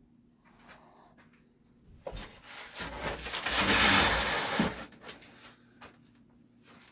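A cloth towel pulled off a benchtop scroll saw: a rubbing, swishing rustle lasting about two and a half seconds, loudest near the end, after a few faint handling taps.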